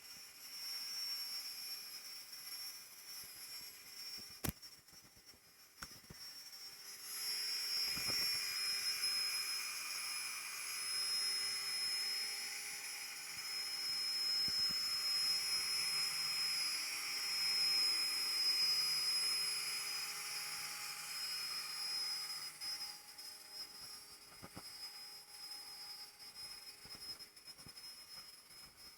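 Homemade CNC router with a bicycle-chain and pulley drive running: a steady high-pitched spindle whine, louder and fuller through the middle stretch, with a couple of sharp clicks.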